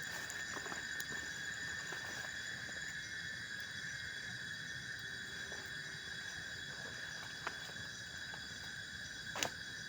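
Steady chorus of night insects, several high, even trills sounding together without a break. A few soft clicks or knocks, the sharpest one near the end.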